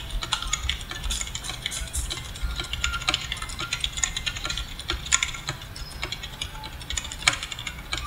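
Typing on a Lenovo Legion K300 RGB membrane keyboard: a quick, uneven run of mushy keystrokes.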